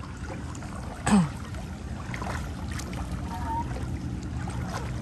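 A small engine running steadily, its hum growing a little louder after the middle. A voice gives one short falling call about a second in.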